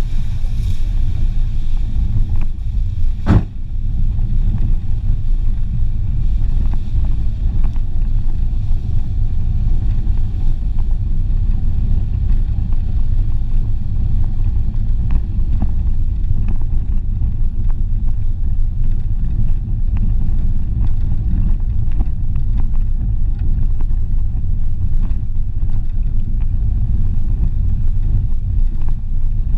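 Renault Clio driving over a rough dirt road: a steady low rumble, with one sharp knock a little over three seconds in.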